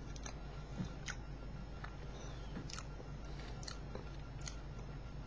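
A person chewing a mouthful of cake, with faint wet mouth clicks about once a second.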